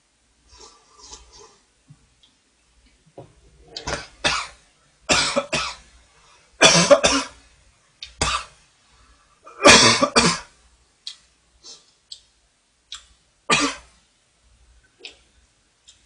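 A man coughing in a fit of short, harsh coughs just after sipping spicy noodle broth, the heaviest coughs about seven and ten seconds in, then a few lighter ones trailing off.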